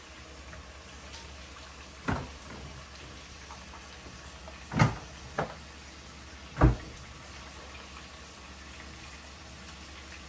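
Four sharp kitchen knocks, about 2, 5, 5.5 and 6.5 seconds in, the last two the loudest, over a steady sizzle of potatoes frying in a pan.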